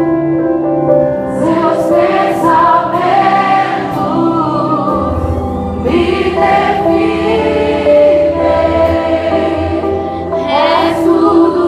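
Live gospel worship music: many voices singing together over instrumental backing played through the hall's loudspeakers. A low bass line comes in about five seconds in.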